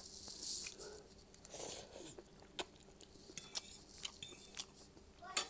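Close-up chewing and mouth sounds of someone eating, with a few light clinks of a metal fork against a plate in the middle and a sharp click near the end.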